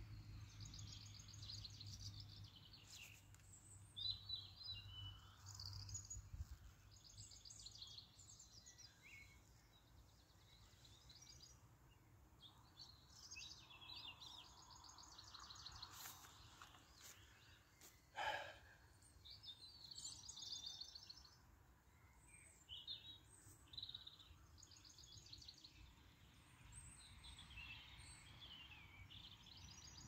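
Faint songbirds singing in short, rapidly repeated phrases, several overlapping, over near silence. One brief knock about eighteen seconds in.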